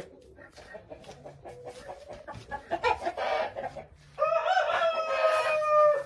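Wyandotte chickens clucking softly, with a louder call about three seconds in, then a rooster crowing: one long held note, falling slightly in pitch, for nearly two seconds near the end.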